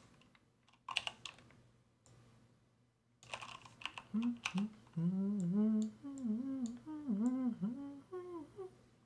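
Computer keyboard keys clicking in short runs, then from about four seconds in a person humming a short, wavering tune for about four seconds.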